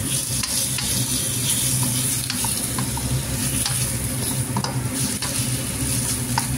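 Chicken frying with onion in a wok, sizzling steadily while a wooden spatula stirs it, with scattered light clicks and scrapes of the spatula against the pan.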